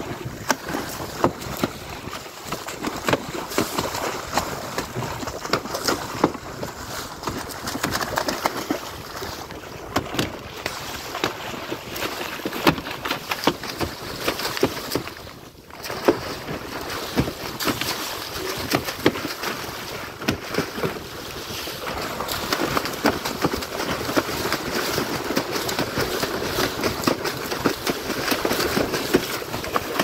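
Water rushing and splashing along the side of a small wooden boat, with a hooked tuna splashing at the surface beside the hull as it is hauled in on a handline. The sound drops away briefly about halfway through.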